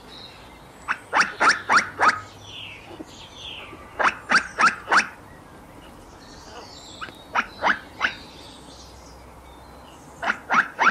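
Squirrel barking calls: short, sharp barks in quick bursts of three to five, a burst about every three seconds.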